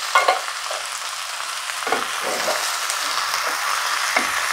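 Mixed vegetables sizzling in hot oil in a frying pan, with a steady hiss. A spoon stirs them, scraping and knocking against the pan a few times.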